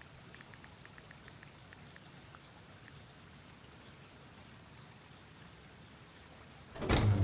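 Faint outdoor ambience with small, regularly repeating ticks and chirps. About a second before the end, a loud, deep sustained note with a sharp attack comes in, the drama's background score entering.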